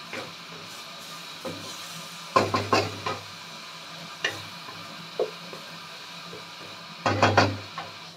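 Wooden spatula stirring and scraping squid and onion around a wok over a steady sizzle, with scattered single knocks and two loud bursts of rapid clatter against the pan, about two and a half seconds in and again near the end.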